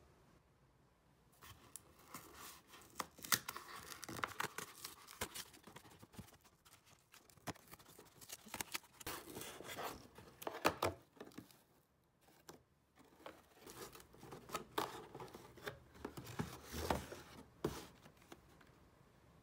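Cardboard shipping box being opened by hand: tearing, scraping and rustling of the cardboard flaps, with sharp clicks and knocks as the box and the small retail box inside are handled. There is a short lull about two-thirds of the way through.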